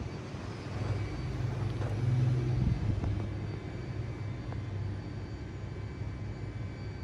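Low, steady engine hum in the background, swelling about two seconds in and then easing back to a lower drone.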